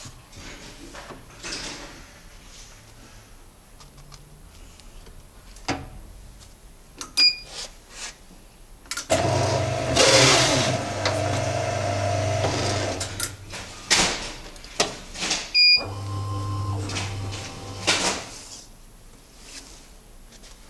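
450EP electric guillotine paper cutter going through a cut: after some paper handling and clicks, its motor runs with a steady hum for about four seconds as the blade comes down through the paper stack, then runs again more briefly a few seconds later. Two short beeps sound, one before the first run and one after it.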